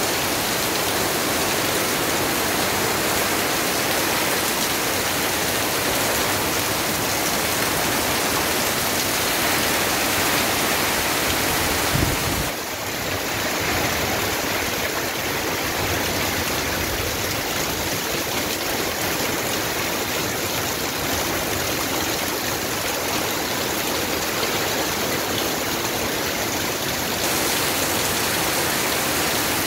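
Heavy rain falling steadily on trees and leaves, with water pouring off the edge of a plastic sheet overhead. The sound dips briefly and shifts slightly about twelve seconds in.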